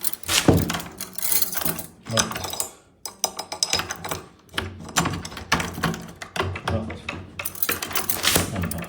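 Repeated metallic clicks and clatters of a door lock mechanism being worked by hand.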